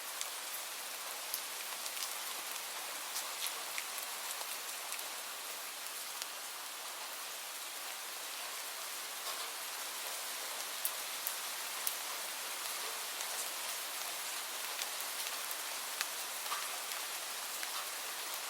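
Light rain falling steadily, a soft even hiss with scattered individual drops ticking through it.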